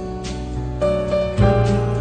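Soft instrumental background music, with a new note or chord about every half second.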